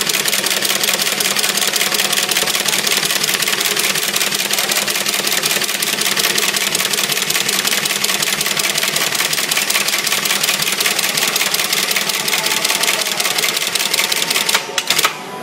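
Brush tufting machine running at speed, a rapid steady mechanical clatter as it punches bristle tufts into a round toilet-brush head. The clatter falls away near the end.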